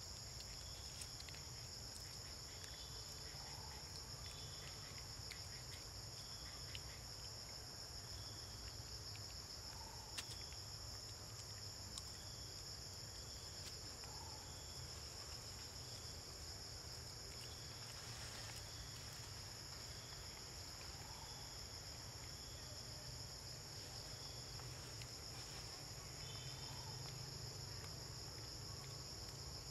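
Steady high-pitched drone of insects in the forest, with a faint short call repeating every couple of seconds and a few soft clicks.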